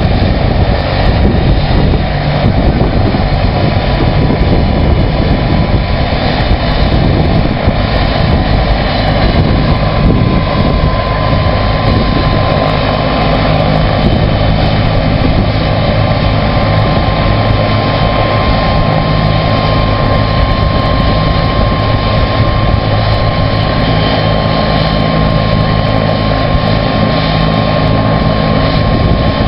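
Bell 206 JetRanger helicopter running at ground idle on its skids, rotor turning: a steady high turbine whine over a low, even engine and rotor rumble that does not change.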